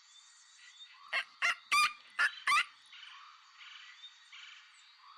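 A steady, pulsing chorus of frogs, with a quick run of five loud, sharp animal calls a little over a second in.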